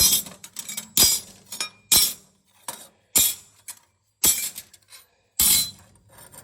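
Sharp metallic clinks and knocks, metal striking metal, from work on a combine's sickle bar while broken sickle sections are being changed. About eight irregular strikes, some ringing briefly.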